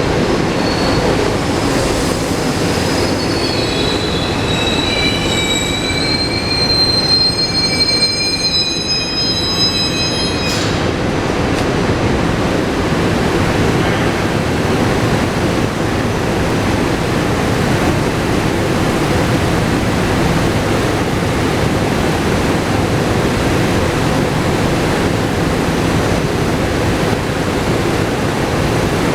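SEPTA Regional Rail train in an underground station: its wheels squeal in several high tones for about the first ten seconds, then the squeal cuts off sharply and a steady rail rumble carries on.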